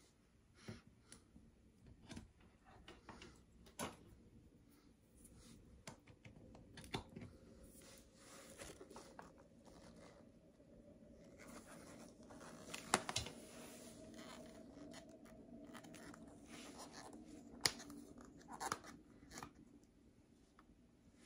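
Clicks, knocks and rubbing of a plastic portable blender bottle and its base as it is picked up, tipped and turned over in the hands, with two sharper clicks about halfway through and near the end.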